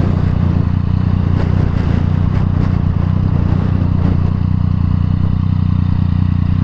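Yamaha MT-09's inline three-cylinder engine running steadily through an Akrapovič exhaust, with no revving.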